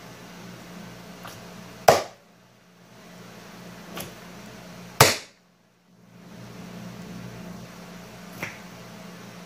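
Bead-filled slime being pressed flat by hand on a table, giving sharp pops: two loud ones about two and five seconds in and a few faint clicks between, over a steady background hum.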